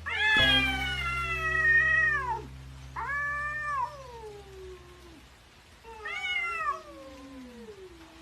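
Domestic cat meowing three times: a long drawn-out meow, a short one, then one that slides down in pitch.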